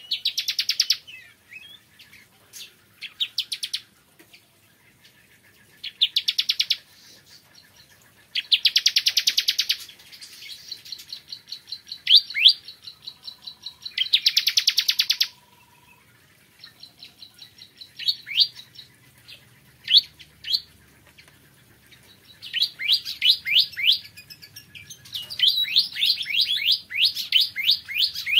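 Ciblek kristal (bar-winged prinia) singing. Its song alternates high, fast trills about a second long with series of short rising chirps, and the chirps quicken into a dense run near the end.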